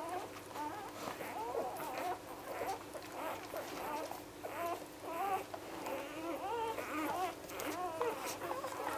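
Day-old newborn puppies squeaking and whimpering, several at once, in short squeals that rise and fall in pitch.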